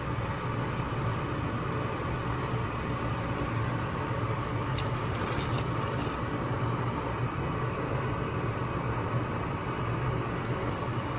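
A pot of noodles at a rolling boil, the water bubbling and foaming with a steady low rumble. A few brief faint splashes come about five seconds in, as cold water is added to knock the boil down.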